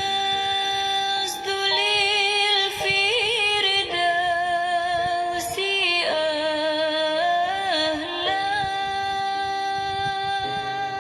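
A woman singing a slow, ornamented devotional melody (selawat), holding long notes and decorating them with quick wavering turns and glides.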